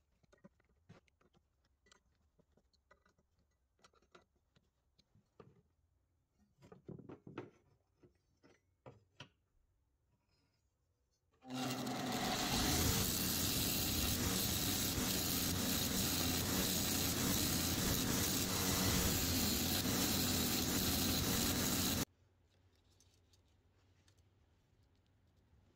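Belt grinder running with a green abrasive belt, a loud steady rush of motor and belt noise that starts suddenly about eleven seconds in and cuts off suddenly about ten seconds later. Before it, faint scattered clicks and light taps of screwdriver work on small screws in a steel plate.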